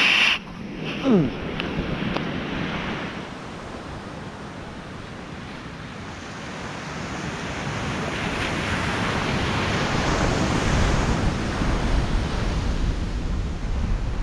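Ocean surf washing on the beach, swelling into a larger breaking wave midway through, with wind buffeting the microphone in the second half. A brief falling squeak sounds about a second in.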